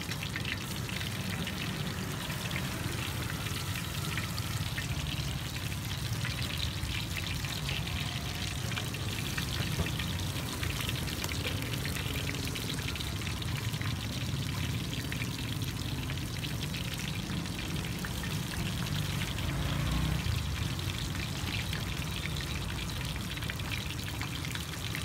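Battered shrimp fritters deep-frying in a wok of hot oil: a steady sizzle full of fine crackles, over a steady low rumble.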